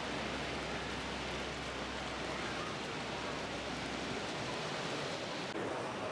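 Steady, even rushing noise with no distinct events, and a faint low hum under it that fades out about four and a half seconds in; the noise turns duller about five and a half seconds in.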